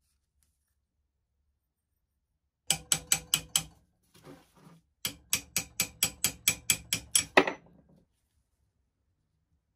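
Hammer rapidly tapping a pin punch to drive the pivot pin out of a manual potato chipper, with ringing metal blows at about five a second. There is a first run of about five blows, a short quieter scuffle, then about a dozen more, the last the loudest.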